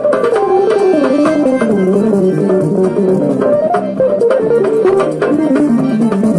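Electric guitar playing a fast, winding single-note folk dance melody from a Georgian–Ossetian–Abkhazian medley, over steady hand-drum percussion.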